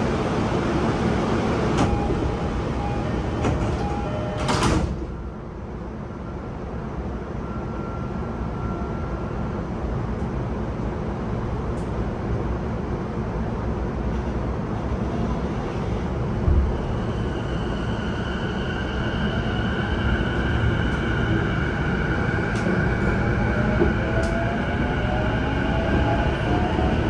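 Inside an E233-7000 series commuter train: steady car hum, then a sliding door shutting with a short thud and hiss about four seconds in, after which it is quieter. From about halfway the train pulls away, its Mitsubishi IGBT-VVVF inverter and traction motors whining in steady tones, with pitches rising near the end as it gathers speed.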